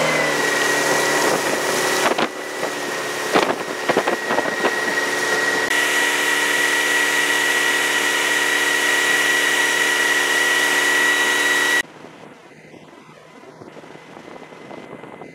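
Boat motor running steadily under way with a steady high whine, and a few knocks about two to four seconds in. The motor cuts off suddenly about twelve seconds in, leaving quieter wind and water noise.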